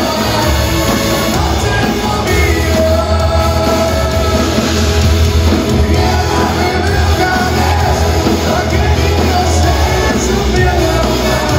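Live rock band playing loud, with a singer and heavy bass, heard from within the crowd in a large hall.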